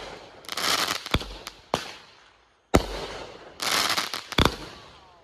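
Consumer fireworks going off: a string of sharp bangs mixed with longer hissing, crackling bursts, in a pattern that repeats about every three seconds.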